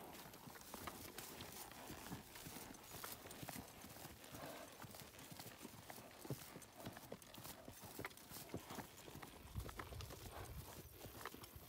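Horses' hooves walking on dry grassland: faint, irregular thuds and clicks of hoofbeats.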